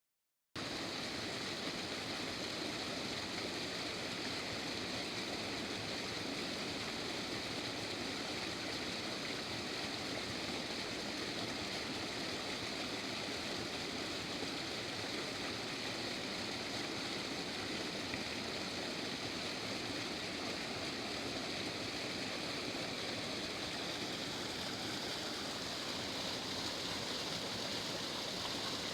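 Waterfall cascade rushing steadily: a continuous, even roar of falling water.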